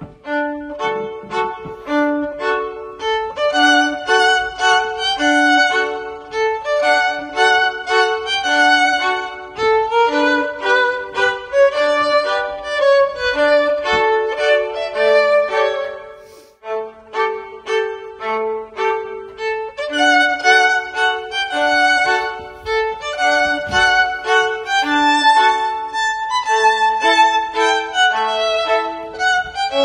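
Instrumental background music with a steady rhythm of short pitched notes over a repeating low figure; it breaks off briefly about sixteen seconds in.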